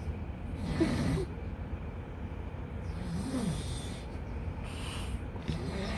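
A man snoring with snorts, a few separate rough breaths over several seconds, one of them with a pitch that rises and falls. It is snoring that onlookers take to be a sign of sleep apnea rather than normal snoring.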